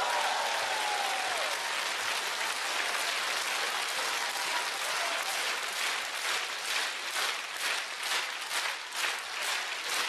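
Studio audience applauding, the clapping falling into a steady rhythm in unison over the second half.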